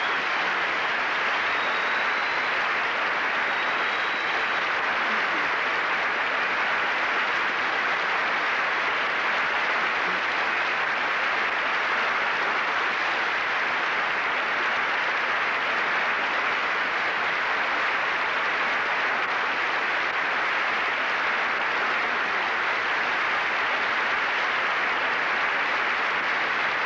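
Large theatre audience applauding steadily and without a break: a long ovation.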